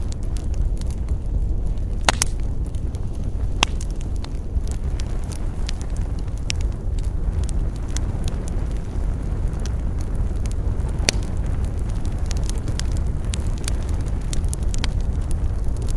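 Wood campfire crackling, with many small pops and a few sharper snaps about two seconds in, near four seconds, and about eleven seconds in, over a steady low rumble.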